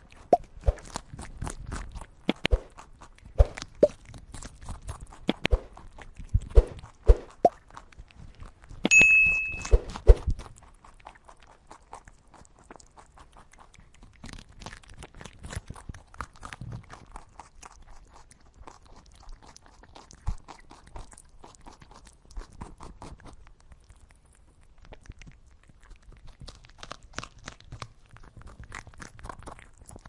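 Rabbit chewing greens close up: a run of sharp, loud crunches through the first ten seconds, then softer, steady nibbling. A brief high-pitched ping sounds about nine seconds in.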